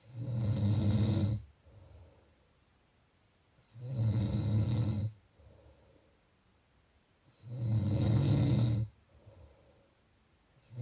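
A sleeper snoring steadily: three loud, low buzzing snores about every three and a half seconds, each followed by a shorter, softer breath.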